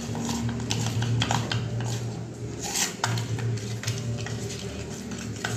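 Raw shrimp being mixed by hand with turmeric and salt in a ceramic bowl: irregular light clicks and clinks of fingers and shrimp against the bowl, over a steady low hum.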